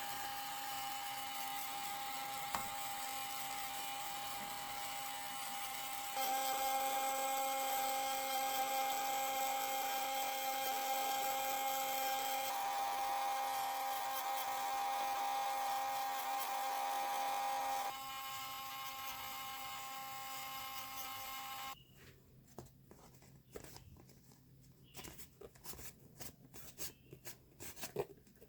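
Small high-speed electric motor running with a steady whine. It steps louder about six seconds in, drops back after about eighteen seconds and stops at about twenty-two seconds, followed by light clicks and rustling of handling.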